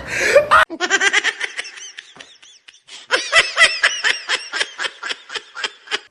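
Someone laughing in quick repeated "ha" pulses, about four a second. A little under a second in there is an abrupt cut to a different, thinner-sounding laugh, which pauses briefly in the middle and then starts again.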